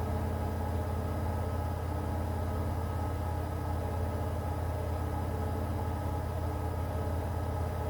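Washing machine running with a steady, even motor hum.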